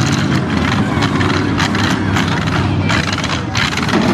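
Demolition derby trucks' engines running loud under load, with repeated sharp knocks of the trucks ramming and scraping each other.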